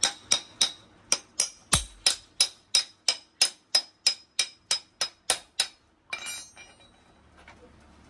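Sharp, ringing metallic clicks, about four a second, from a spanner being worked on a bolt at a motorcycle's rear wheel. They stop about six seconds in, followed by a brief light rattle of metal.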